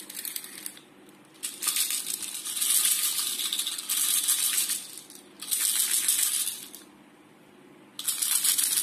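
Plastic BBs rattling back and forth inside the magazine of a toy spring airsoft pistol as it is tilted end to end, in five separate bursts.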